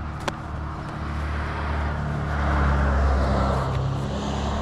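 A road vehicle passing: a steady low engine hum, with engine and tyre noise swelling to a peak about three seconds in, then easing off.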